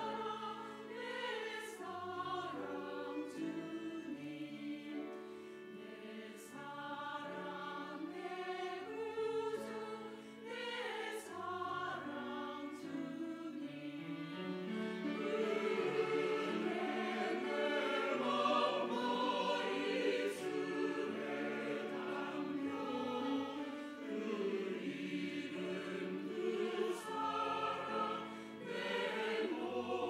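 Mixed-voice church choir singing in harmony, growing louder about halfway through.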